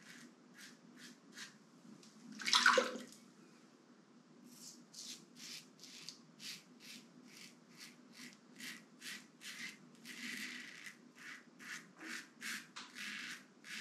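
Stainless-steel Razorock Lupo double-edge safety razor shaving through lather and stubble on the closed-comb side, short scratchy strokes about two to three a second. One louder swish comes about two and a half seconds in.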